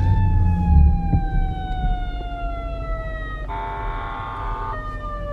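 Emergency vehicle siren wailing, its pitch sliding slowly downward. About three and a half seconds in, a harsher buzzing tone cuts in for about a second. A steady low traffic rumble runs underneath.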